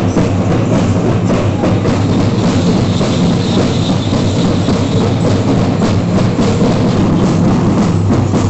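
Loud, continuous drum-led percussion music with a fast, steady beat, accompanying the festival dancers.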